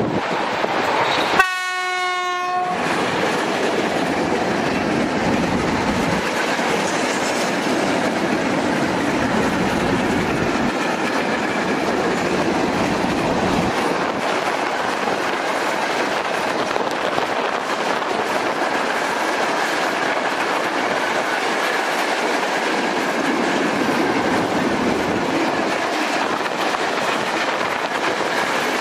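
ET22 electric freight locomotive sounding its horn in one short blast about a second and a half in, then the steady rolling noise of a long train of open freight wagons passing close by on the rails.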